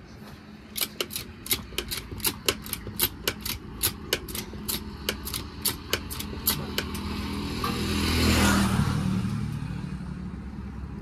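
Rapid, regular clicking, about three to four a second for around six seconds, over a low engine hum; then a vehicle passes close by, its noise swelling and fading with a falling pitch.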